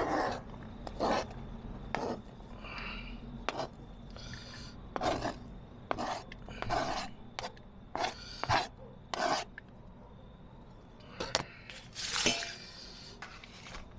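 Knife cutting onions, a run of uneven slicing strokes about one a second with short pauses between.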